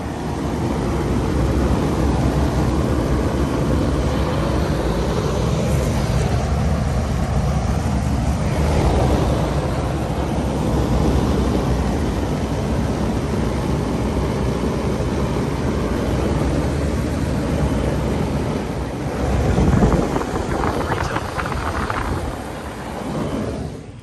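Loud rushing, rumbling air noise buffeting the microphone, swelling and easing, with a stronger surge about twenty seconds in.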